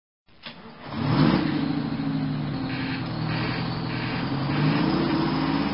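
Lorry engine running and revving, its pitch climbing about a second in and again near the end.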